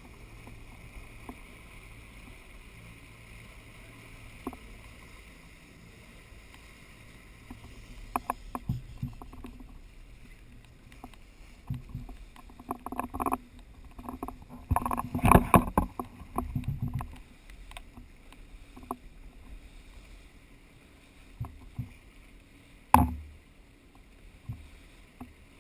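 Muffled handling noise from a GoPro dive housing on a camera pole: a faint steady hum, then a run of knocks and thumps in the middle and one sharp knock near the end.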